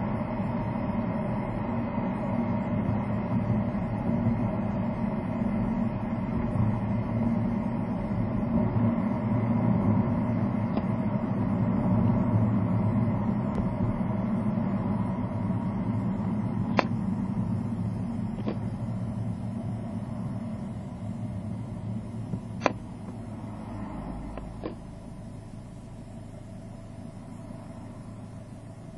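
Car road and engine noise heard inside the cabin as the car drives, a steady rumble that dies down over the last several seconds as it slows to a stop behind traffic. A few faint clicks come in the second half.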